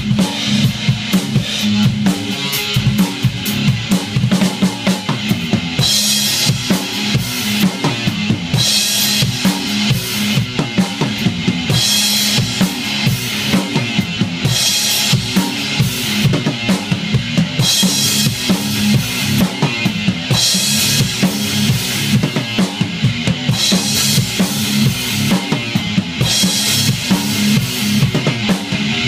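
Drum kit played hard and fast, with a driving kick and snare and cymbal crashes coming about every three seconds from about six seconds in.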